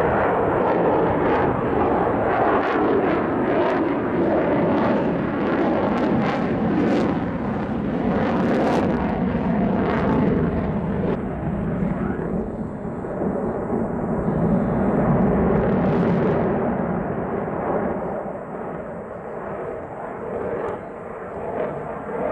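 An F-22 Raptor's twin Pratt & Whitney F119 afterburning turbofans roaring during a display flight: a loud, steady jet rush that eases off near the end and then builds again.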